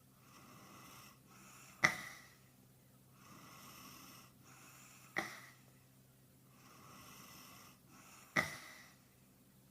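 A man snoring in a regular cycle, three times: each time a breathy draw of about a second, then a sudden loud snort that trails off. The recording is sped up and pitched up.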